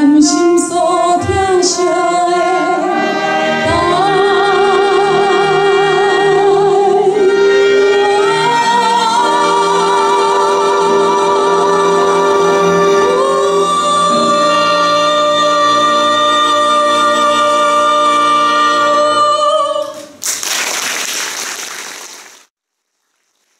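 A female singer with string orchestra sings the closing phrases of a song, with long held notes sung with vibrato, ending on a sustained final note about 20 seconds in. Applause follows, then the sound cuts off suddenly near the end.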